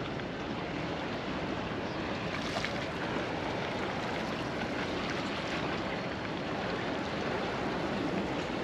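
Small sea waves lapping and splashing against the boulders of a rocky breakwater: a steady wash of water with fine splashes throughout.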